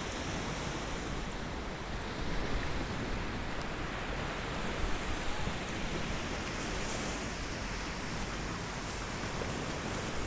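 Steady wind noise on the microphone, with surf washing on the shore behind it.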